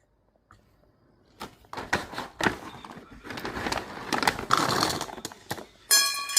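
Crinkling, crackling handling noise for about four seconds, like packaging being worked open, followed shortly before the end by a sudden high, buzzy tone.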